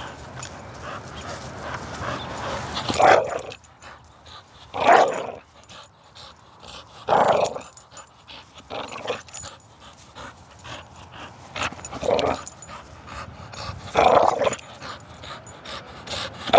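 American pit bull terrier vocalizing in short, loud bursts about every two seconds while tugging on a rope toy: play sounds, not aggression.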